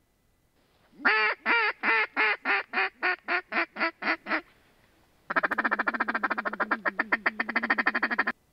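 Hand-blown mallard duck call: a string of about a dozen quacks that come quicker and shorter as they go, then after a short pause a fast rattling feed chuckle that stops abruptly.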